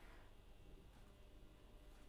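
Near silence: faint room tone, with a faint scratch of a marker writing on paper at the very start.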